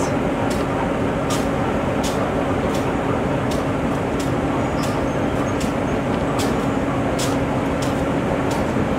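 GE B23-7 diesel-electric locomotive, with its turbocharged V12 diesel, idling steadily, with sharp irregular ticks about twice a second over the engine's even hum.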